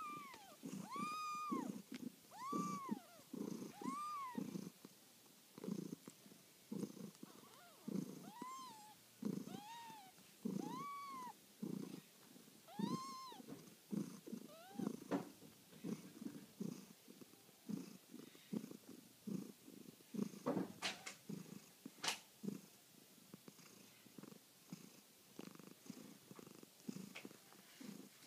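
A nursing cat and her 8-day-old kittens purring in steady rhythmic breaths, with short high-pitched kitten mews, each rising then falling, repeating about every second or two through the first half. A few faint clicks a little after the middle.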